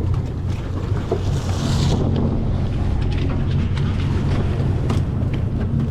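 A boat's engine runs with a steady low hum, with wind buffeting the microphone and water rushing past the hull. A short hiss of spray comes about a second and a half in.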